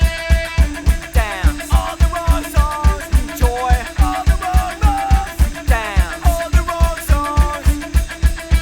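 Background music with a fast, steady drum beat of about four strokes a second and a sliding melody over it.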